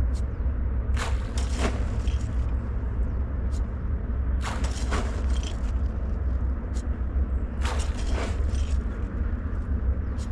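Handfuls of granulated fish-feed pellets scooped from a plastic bag and tossed onto the lake, heard as short rustles and patters about every three seconds. Under them runs a steady low rumble.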